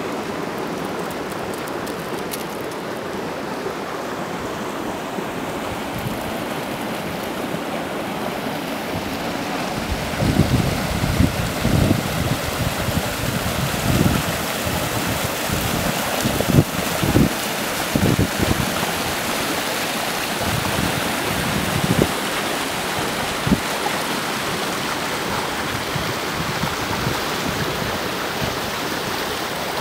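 Water rushing out of a small stone weir's outlet pipes into a stream, a steady rush. Wind buffets the microphone in irregular gusts from about ten seconds in.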